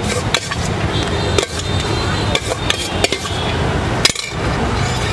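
Steel spoon clinking and tapping against steel bowls and containers, about six sharp clinks, over a steady background of street traffic.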